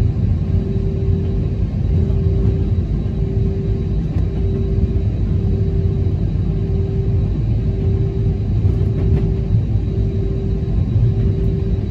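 Airliner cabin noise while taxiing: a steady low rumble from the engines and the rolling wheels, with a hum that pulses on and off about once every three-quarters of a second.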